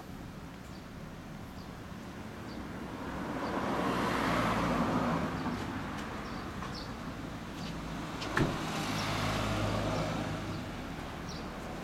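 Kawasaki ZRX1200R's inline-four idling steadily through a Nojima racing exhaust with a low, even note. A passing vehicle swells and fades about four seconds in. A sharp click a little after eight seconds is followed by a second, deeper swell.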